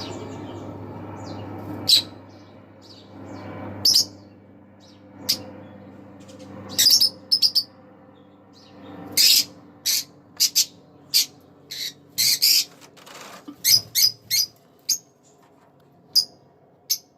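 A pair of green Fischer's lovebirds calling: short, sharp, high-pitched chirps and squawks at irregular intervals, coming thickest about halfway through. A low steady hum sits under the first few seconds.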